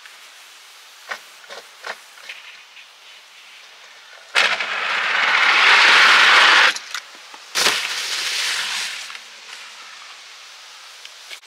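Ski-jumping skis hissing down the inrun track, growing louder with speed and cutting off suddenly at takeoff. About a second later comes a sharp landing on the plastic-matted hill, then a sliding hiss that fades. A few light clicks come before the run, about a second in.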